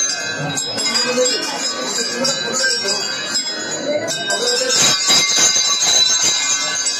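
Hanging temple bells rung over and over, their clangs overlapping and ringing on, with a crowd's voices underneath.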